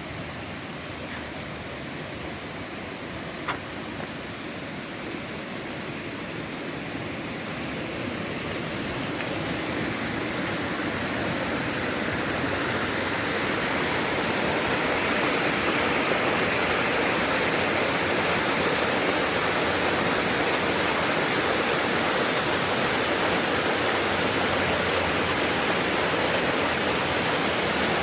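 Little Mashel River waterfall rushing with a steady roar of falling water that grows louder about a third of the way in and then holds. A single short click a few seconds in.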